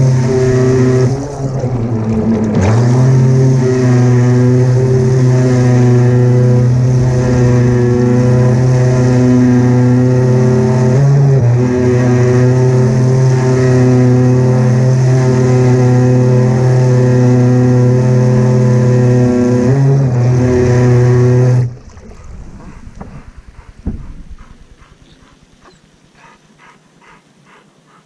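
Remote-control fishing boat's motor running steadily at speed, heard from on board with the rush of its wake. The motor stops about 22 seconds in, leaving quieter water sounds and a single knock.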